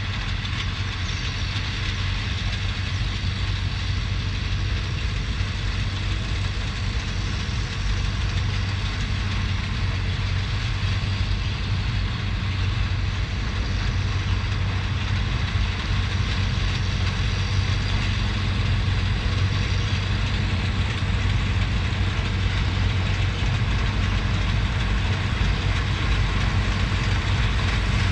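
Diesel engines of a sugarcane harvester and the tractor hauling its cane wagon, running steadily as they work: a deep, even hum with hiss above it, growing slightly louder over the stretch.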